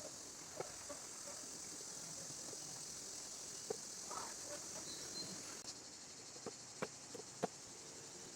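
A handful of short, sharp clicks of a knife cutting into wood while carving a small spoon, spaced irregularly and bunching toward the end. Under them runs a steady high hiss that cuts off abruptly about two-thirds of the way through.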